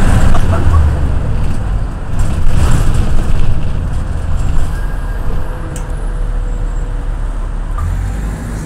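Green minibus running, heard from inside the passenger cabin: a steady low engine and road rumble. It is louder at first and eases off about halfway through.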